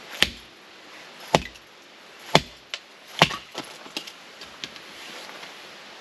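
Gerber axe chopping into a log: four hard strikes about a second apart, followed by a few lighter knocks of wood.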